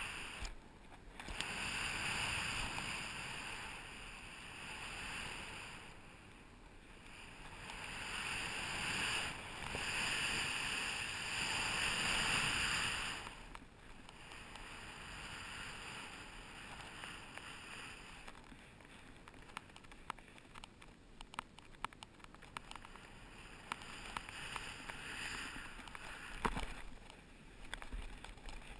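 Snowboard sliding through snow, a hissing rush that comes in long swells and eases off about halfway through. In the later part it is quieter, with scattered small clicks and taps.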